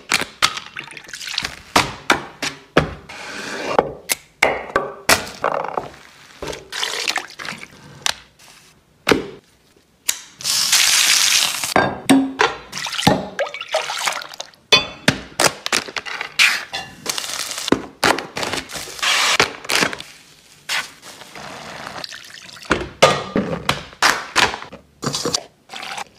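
A fast string of close-up kitchen sounds: sharp knocks, taps and thunks of hands, utensils and food on boards and pans, with liquid being poured. About ten seconds in, a loud steady hiss lasts about two seconds.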